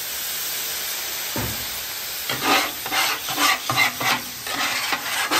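Water squirted onto the hot steel top of a Blackstone griddle hisses and sizzles into steam, lifting the burnt-on sauce sugars. From about two seconds in, quick rasping scrubbing strokes across the griddle surface take over, several a second.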